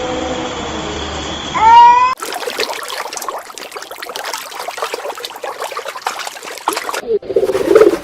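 Three animal clips cut together. First a drawn-out mewing call gliding down in pitch, which cuts off about two seconds in. Then several seconds of steady crackling, trickling noise, and near the end a pigeon begins cooing in low, repeated notes.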